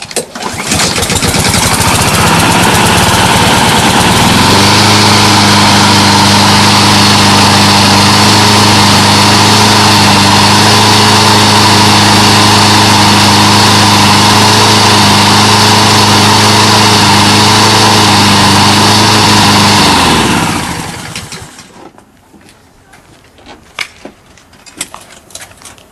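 Walk-behind rotary lawn mower's small engine pull-started, catching almost at once and settling into a steady run a few seconds in. It runs evenly for about twenty seconds, then is shut off and winds down to a stop.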